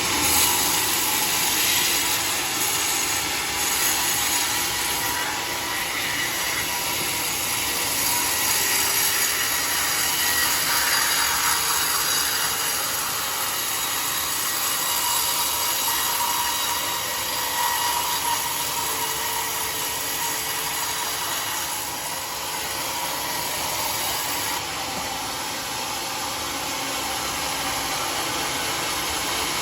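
Sawmill saw running steadily through mahogany wood, a continuous mechanical noise with no breaks.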